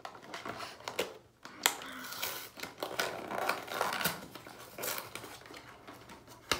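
Pregnancy test wrapper being handled and opened: plastic packaging crinkling and tearing, with a few sharp clicks.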